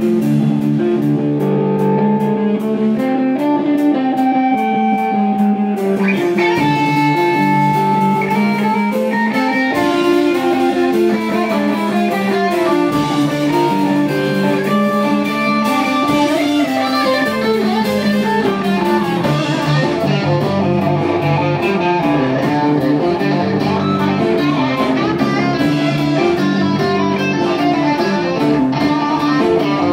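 Live rock band playing: two electric guitars, bass guitar and a drum kit. The sound grows fuller and brighter about six seconds in.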